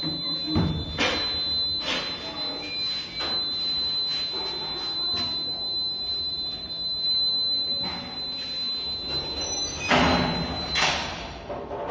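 Wooden hospital double doors being pushed open and swung, with several knocks and clunks, the loudest about ten seconds in. A steady high-pitched electronic beep runs underneath and stops near the end.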